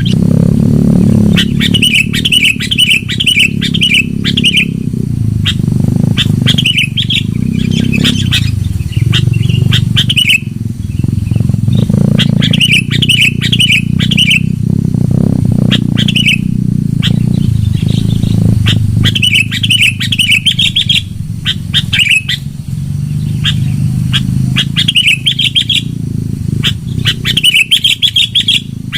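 Sooty-headed bulbul (kutilang) singing loud, bubbly chirping phrases, each a second or two long and repeated every few seconds, over a steady low hum.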